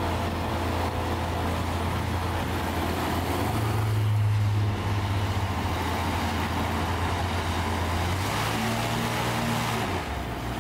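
Light aircraft piston engines running at idle with propellers turning: a steady low drone that shifts in pitch a few times.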